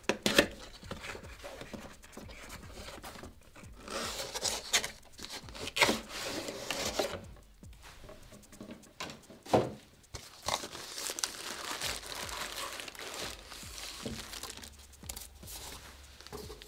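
Hands opening cardboard packaging and a taped inner cardboard sleeve, then handling the clear plastic bag of figure parts: irregular rustling, crinkling and tearing, with a few short, sharper handling noises.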